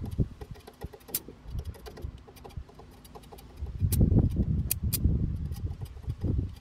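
A 2 mm stick-welding electrode scratching and tapping on steel to strike an arc, with irregular clicks and crackling and louder rough bursts about four to five seconds in. The arc is hard to get going with these thin rods.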